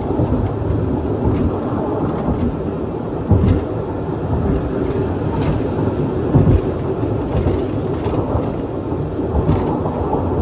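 Steady low rumble of a vehicle in motion heard from inside the cab on a body camera, with scattered small clicks and two louder thumps about three and six and a half seconds in.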